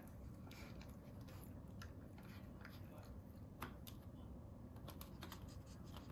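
Boston terrier puppy eating from its bowl: faint, scattered clicks and crunches of chewing and of nosing the bowl for the last bits of food, with one sharper click about three and a half seconds in.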